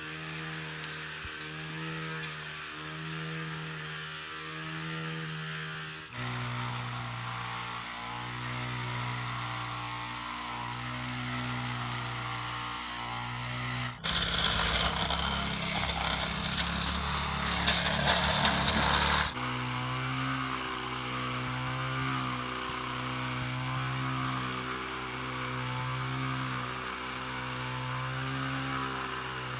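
Engine-driven construction machinery running, its hum pulsing about once a second. In the middle a louder, harsher stretch of engine noise lasts about five seconds.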